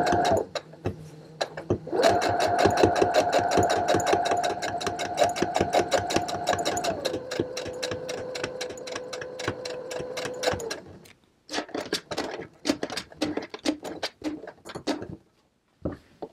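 Brother domestic sewing machine stitching through heavy upholstery canvas. It runs briefly, pauses for about a second and a half, then runs again for about nine seconds, dropping to a slower speed partway through before stopping. Irregular light clicks follow for a few seconds.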